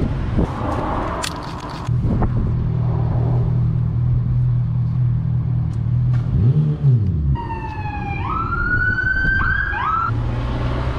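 An emergency-vehicle siren wailing in the second half, its pitch climbing sharply two or three times, over a steady low hum. A few sharp clicks near the start.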